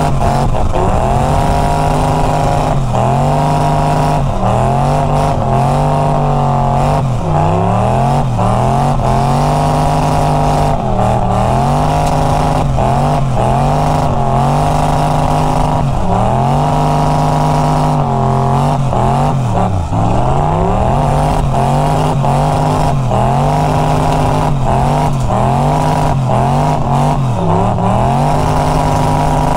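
Turbocharged 283 small-block Chevy V8 revving hard in a burnout, heard from inside the cabin. Its pitch climbs and drops again every second or two, with tyre noise underneath.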